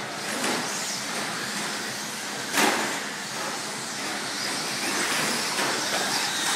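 Team Associated SC10 electric short-course RC trucks racing, a steady noisy whir of motors and tyres on the track, with one loud knock about two and a half seconds in.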